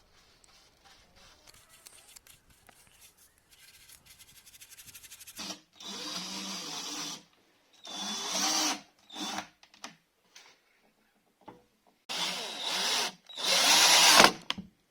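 Power drill run in four short bursts of about a second each, its motor speeding up and winding down with each trigger pull, after a few seconds of faint ticking.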